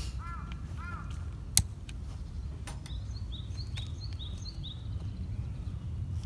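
Birds calling: two arched calls near the start, then short high chirps repeating about twice a second through the second half. Over a low steady rumble, a burning wood campfire gives sharp pops, with one loud pop about one and a half seconds in.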